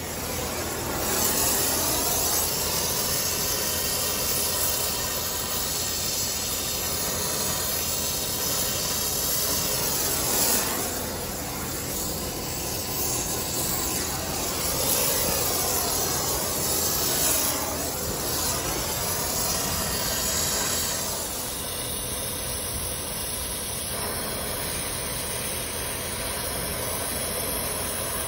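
Brazing torch flame hissing steadily as it heats the copper refrigerant line joints on an AC compressor for brazing.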